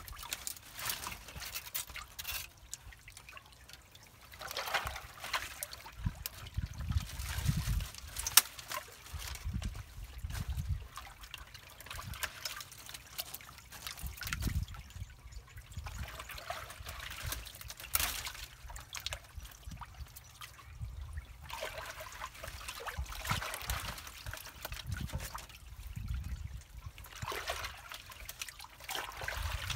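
Muddy floodwater trickling and gurgling through a tangle of branches that is choking a drain. Now and then come splashes and knocks as sticks are moved in the water.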